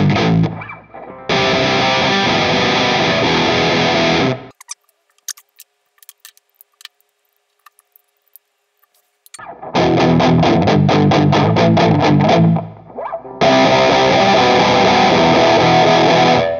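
Distorted electric guitar through stacked overdrive and distortion pedals playing the same riff twice: quick repeated chugs, then a held chord. Between the two passes there are about five seconds of near silence with faint clicks. The pedal order is swapped between the passes, so the second pass has a different distortion character.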